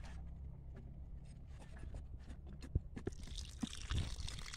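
Scattered crunches and scrapes in dry, loose soil over a low steady rumble. Near the end water from a watering can starts pouring onto the soil around a newly planted capsicum seedling.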